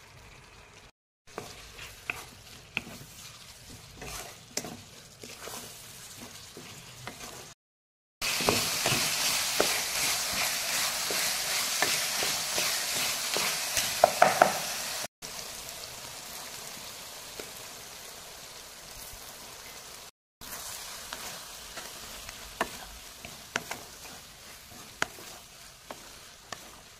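Soya chunks and vegetables frying in oil in a steel pan, sizzling, while a spoon stirs them with short clicks and scrapes against the metal. The sizzle is much louder through a stretch in the middle, with a few sharp knocks of the spoon near its end, and the sound breaks off abruptly several times.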